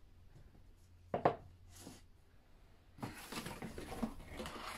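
A book pushed onto a wooden bookshelf with a short knock about a second in, then paper and cardboard packaging rustling and crackling as the next book is handled.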